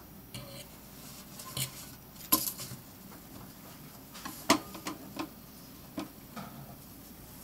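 Metal fork clinking and scraping against a stainless-steel sink basin as it prods a centipede: a series of irregular clinks, the loudest about two and a half and four and a half seconds in.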